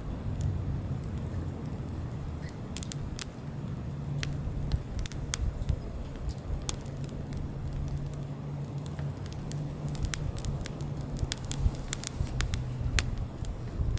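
Split firewood logs burning in an open fire stand, crackling with frequent sharp, irregular pops that come thicker near the end. A low steady rumble sits underneath.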